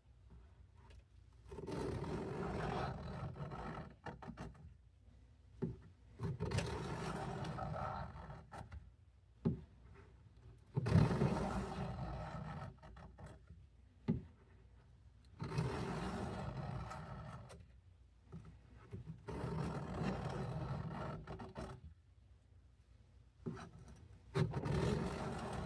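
Steel knife blade scraped along a coarse sharpening stone lubricated with WD-40, in six runs of strokes of about two seconds each with short pauses between. The edge is being ground down to work out a nick in it.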